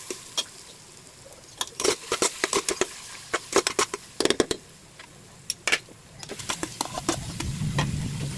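Kitchen utensils and cookware clinking and knocking as they are handled, in irregular clusters of sharp clicks. A low steady rumble comes in near the end.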